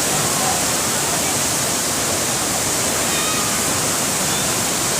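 Heavy waterfall, about 50 metres high, pouring down in a steady, loud rush of water.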